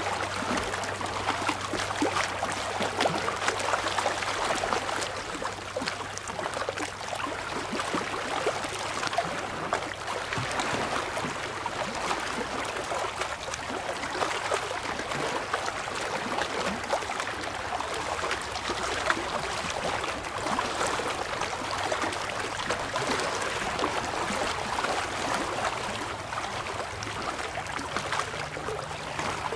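Small waves lapping and splashing against shoreline rocks: a steady wash of water full of little trickling splashes.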